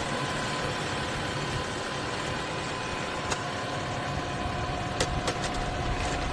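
Tractor engine idling steadily, with a few sharp clicks about three and five seconds in.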